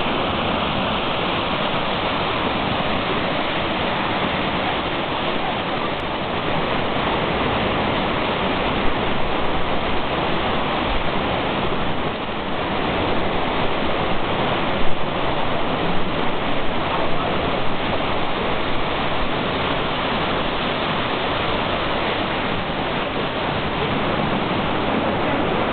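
Fast river water rushing through rapids under a stone bridge: a steady, even white-water noise.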